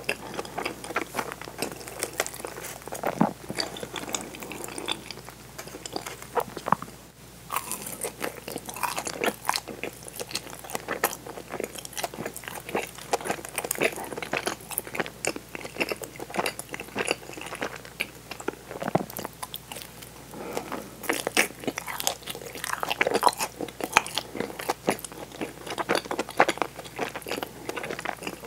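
Close-miked chewing and biting of butter-fried daifuku mochi, sticky rice cake with a browned fried crust, making dense wet mouth clicks throughout. There is a brief pause about seven seconds in.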